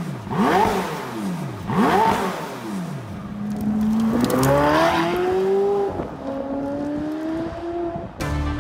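Performance car engine through a custom-built exhaust, revved in three quick blips, then pulling hard under acceleration with its pitch rising steadily; after a brief break about six seconds in, a second rising pull.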